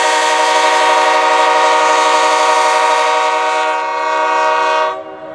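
Multi-chime railroad air horn sounding a steady chord of several notes at once, then cutting off abruptly about five seconds in.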